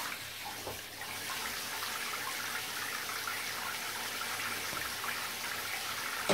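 Water running steadily from a handheld shower, rinsing a wet cat standing in a bathtub.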